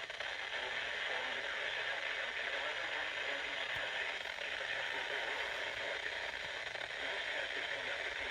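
Steady hiss of radio static from a weather radio receiver, level and unchanging, filling the middle range.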